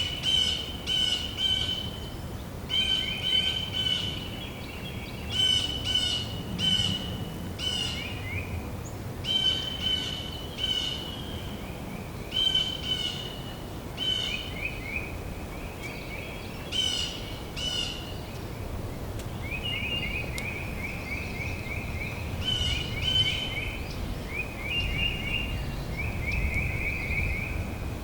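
Songbirds singing in a forest: short phrases and rapid trills repeated every second or two, over a steady low background rumble.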